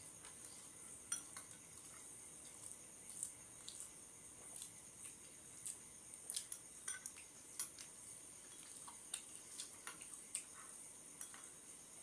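Metal spoon clinking and scraping against a small glass bowl in scattered light clicks, over a steady high-pitched whine.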